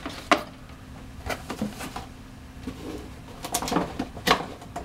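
Hands rummaging in a box of small camera accessories: scattered clicks and knocks of plastic parts and packaging being handled, over a faint steady hum.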